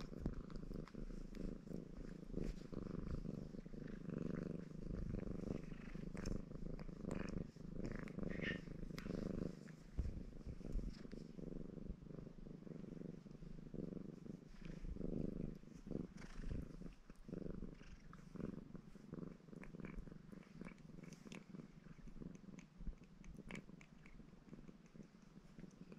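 Ginger Maine Coon cat purring steadily and continuously, with small clicks and rustles as it licks a finger and grooms itself.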